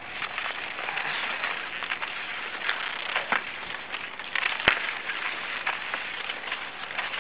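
Cross-country skis scraping and crunching over packed snow in a steady crackling hiss, with a few sharp clicks, the loudest about two-thirds of the way through.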